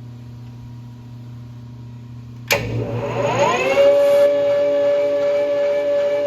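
Metal lathe with a low steady hum, then about two and a half seconds in the spindle motor starts and spins up, its whine rising in pitch for about a second and a half before holding steady at running speed.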